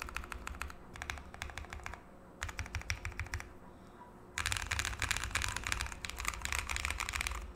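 Fast typing on a custom mechanical keyboard with lubed Holy Panda tactile switches and Cherry Notion keycaps in an O-ring-mounted aluminium case, the keystrokes clattering in quick runs. There are short pauses about two and three and a half seconds in, then a longer, denser run from about four and a half seconds.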